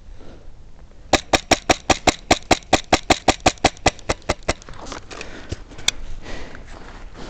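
Airsoft gun firing a rapid string of about twenty shots at roughly six a second, then one more single shot about two seconds later.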